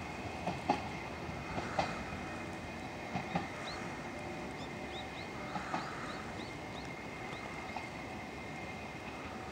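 Hokuriku Railroad 7700 series (ex-Keio 3000 series) electric train pulling away, its wheels clacking in quick pairs over rail joints and points, growing fainter toward the end as it recedes.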